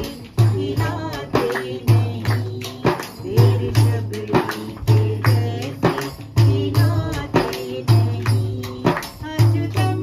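Hand-held frame drum beaten in a steady rhythm of about two strokes a second, with a woman singing a devotional song over it.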